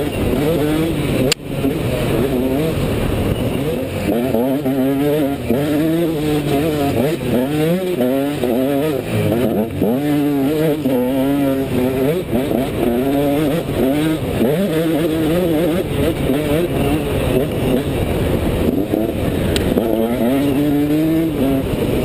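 Enduro dirt bike engine revving up and down continually under hard riding, its pitch rising and falling every second or two as the throttle opens and closes. A single sharp knock about a second and a half in.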